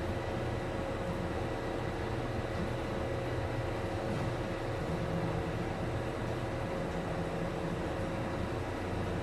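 Steady drone of running machinery, with a few steady whining tones over it.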